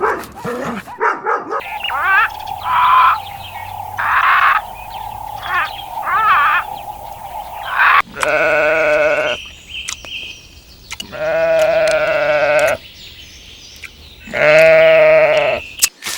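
Bleating farm animals: several short, wavering bleats over a steady hum, then three long, quavering bleats about three seconds apart.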